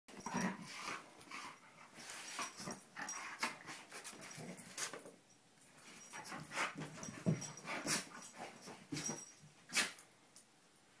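A bichon frise and a bull terrier playing together: a run of short, irregular dog noises in quick bursts that thins out near the end.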